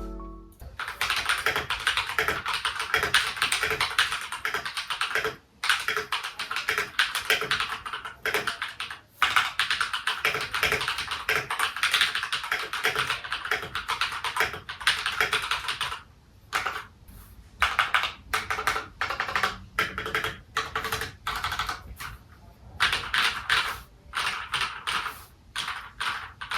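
Typing on an IROK FE87 mechanical keyboard with Akko CS Vintage White switches: a clacky sound. Fast continuous keystrokes break off briefly twice, then from about 16 seconds in come in shorter bursts with pauses between them.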